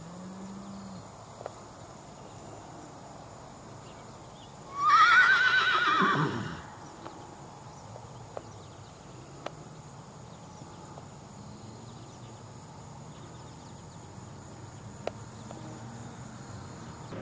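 A horse whinnies once, loudly, for about two seconds near the middle: a high, wavering call that drops in pitch at the end. A few scattered soft knocks are heard before and after it.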